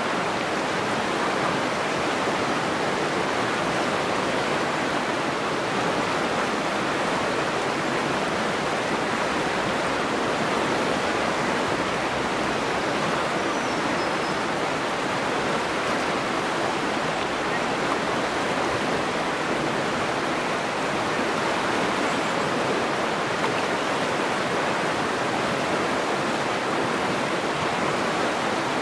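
River rapids rushing steadily over rocks, an even, unbroken roar of water.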